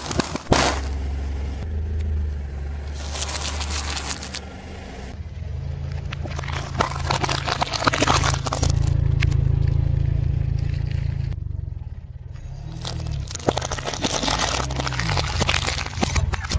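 Car tyre rolling slowly over and crushing objects, with crackling crunches and squelches as plastic packaging and liquid-filled plastic bottles give way, over the car engine's low running hum. It comes in several separate takes that start and stop abruptly.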